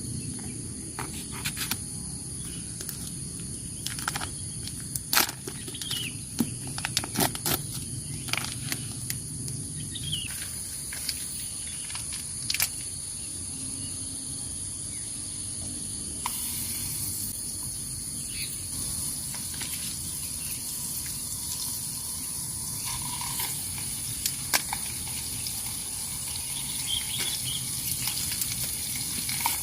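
Outdoor ambience with a steady high-pitched insect drone. Scattered sharp clicks and knocks of camp gear being handled come mostly in the first half, with a few short bird chirps.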